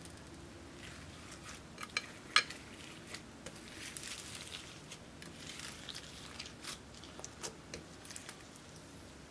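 Slime being handled and mixed, giving irregular sticky clicks, pops and crackles, with one sharper tap, like a hard tool or container, about two and a half seconds in.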